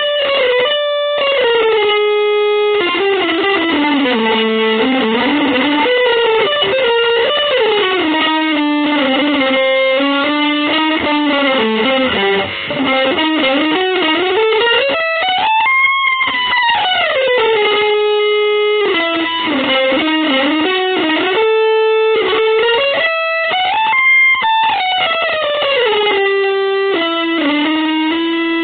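Electric guitar playing a single melodic line, with long slow slides up and down in pitch between quicker runs of notes.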